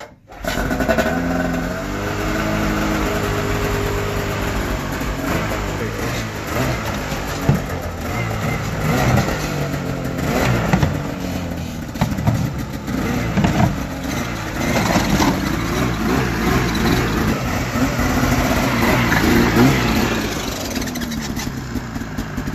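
Arctic Cat Alpha One two-stroke snowmobile engine running, blipped in uneven short revs as the sled is eased down the trailer ramp.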